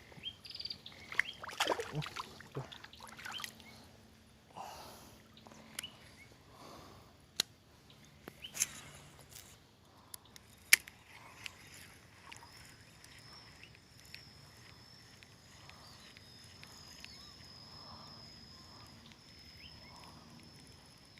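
Water sloshing and splashing in a shallow flowing stream, with scattered sharp clicks and knocks. A steady thin high tone comes in about halfway through.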